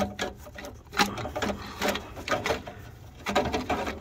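Irregular knocks and rattling clatter of car parts and tools being handled, with a quick run of rattles near the end.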